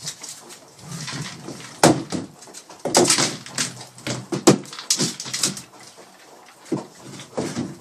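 Kong Wobbler food-dispensing toy knocked by a dog and toppling on a tile floor: irregular hard plastic knocks and clatters with kibble rattling inside, the loudest about two seconds in and again about four and a half seconds in.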